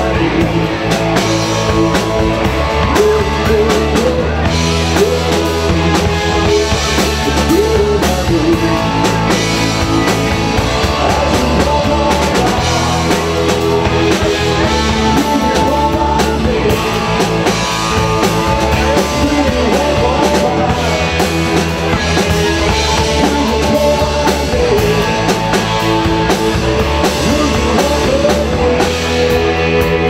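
Live rock band playing, with electric guitar and drum kit.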